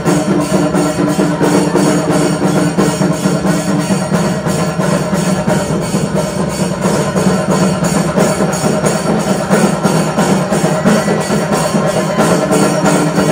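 Music with a steady beat.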